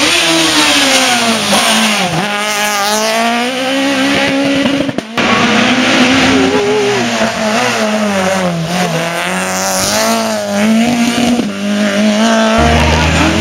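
Rally cars driven hard: engines revving up and falling back again and again as they brake, change gear and accelerate, over a hiss of tyre noise. The sound drops out briefly about five seconds in, then another car takes up the same revving.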